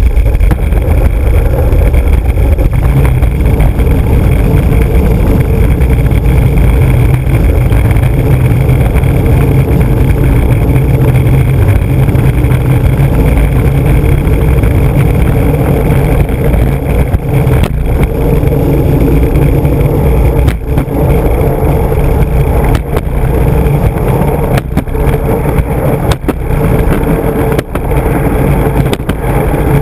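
Skateboard's large urethane wheels rolling fast over rough asphalt: a loud, steady road rumble, with occasional sharp knocks in the second half.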